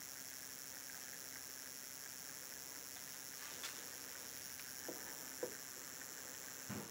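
Midwest Motion Products 12 V DC gearmotor running very faintly: a steady high hiss over a low hum, which may be grease spreading on the gears. A few soft ticks come in after about three seconds, and near the end there is a soft knock as a hand touches the speed control.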